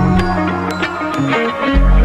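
Background electronic dance music with a heavy bass line and a steady beat.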